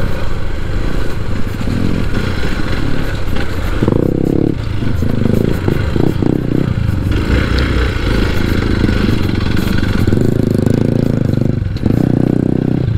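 Hero XPulse 4V's single-cylinder engine running under load off-road, the revs rising and falling as the rider works the throttle.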